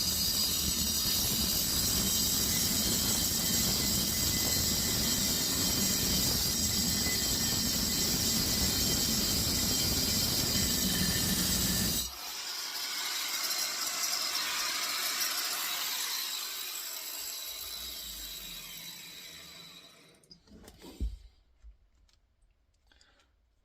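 Angle grinder with a worn cutting disc cutting into the steel shell of a compressor: a steady grinding that cuts off abruptly about halfway through. The grinder then whirs on more quietly and winds down, fading out, followed by a light knock or two. The disc is cutting only slowly, and the owner judges it has had its day.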